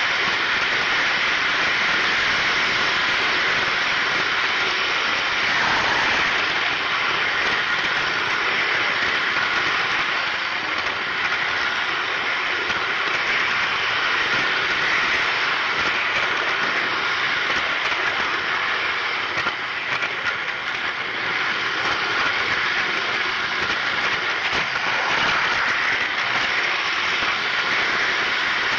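Steady rolling noise of a model train's wheels running on three-rail O-gauge track, picked up close by a camera riding on the flatcar the locomotive pushes.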